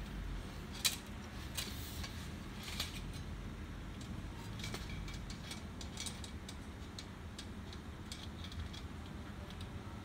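Scattered clicks and light metallic clinks as the plastic fuser assembly and a sheet-metal bracket of an HP LaserJet P3015 printer are handled and positioned at the printer's rear; the sharpest click comes about a second in.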